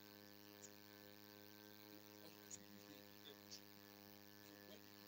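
Near silence apart from a steady electrical hum with many even overtones, like mains hum in the sound system, and a few faint ticks.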